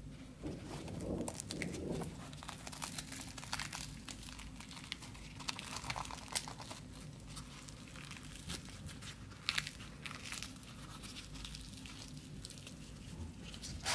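Crisp deep-fried puri crackling and crinkling as fingers squeeze it and tear it apart, a run of small irregular crackles with a fuller rustle about a second in.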